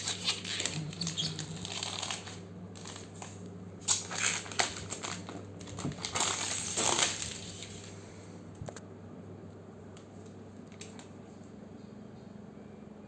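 Irregular rustling, clicks and small knocks of handling over a steady low hum; the handling noises stop about eight seconds in, leaving only the hum.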